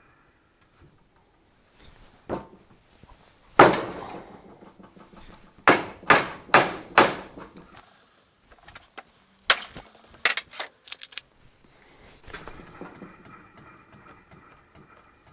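Hammer blows on the steel of a jockey wheel, knocking at its pressed-in hub to drive it out. There is one hard strike, then a quick run of four, then several lighter taps, each with a short metallic ring.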